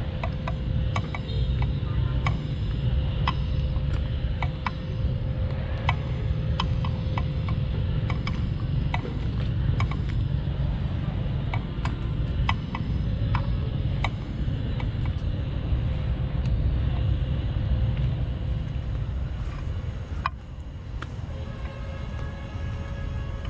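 Steady low rumbling noise with many short, sharp clicks scattered through it and a faint steady tone under much of it. It drops briefly in loudness about twenty seconds in.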